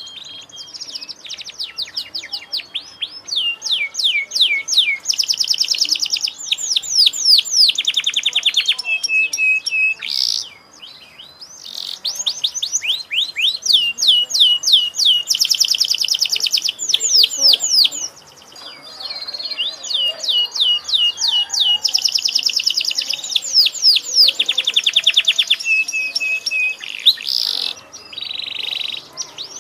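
Domestic canary in full song: long runs of fast trills and quick falling sweeps, broken by short pauses about ten and eighteen seconds in.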